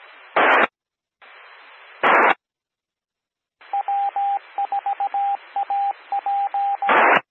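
Two-metre amateur radio repeater (W4AP, 146.84 MHz) heard over a scanner. Its carrier hiss is cut by two short bursts of squelch-tail static. After a gap comes the repeater's Morse code identifier, a single beep keyed in dots and dashes for about three seconds, ending in another burst of static as the carrier drops.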